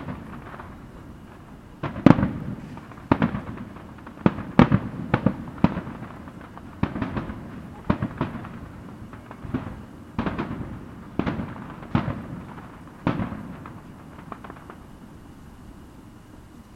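Aerial fireworks shells bursting in a rapid series of sharp bangs, each trailing off. The loudest come about two seconds in, and the bursts thin out and stop about fifteen seconds in.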